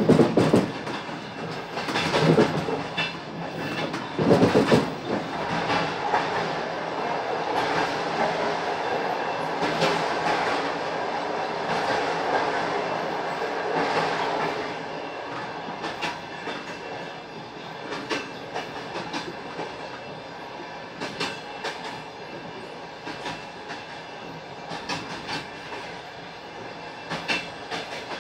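Passenger train running, its wheels clattering over rail joints. A few loud knocks come in the first five seconds, the running is louder for a while after that, and it settles into quieter, regular clicking in the second half.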